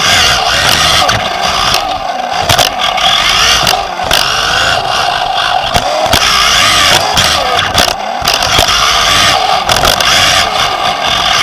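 Onboard sound of a Team Associated B5M 1/10 2WD electric buggy racing on dirt: the Nosram Comet HD brushless motor and drivetrain whine rises and falls with the throttle. Underneath runs a steady hiss of tyres and grit on the chassis, broken by frequent sharp knocks as the car hits bumps.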